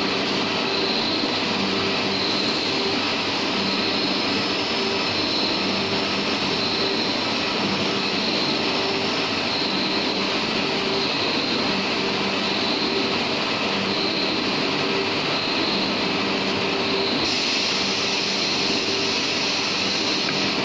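Steady machinery drone with two tones that swell and fade about every two seconds. A higher hiss joins about three-quarters of the way through.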